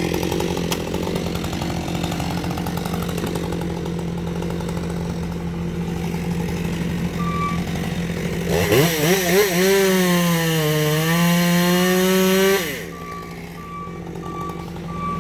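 Two-stroke chainsaw running over a steady engine hum, revved hard about two-thirds of the way in. Its pitch wavers and sags as it bogs into the cut, and it drops off abruptly near the end.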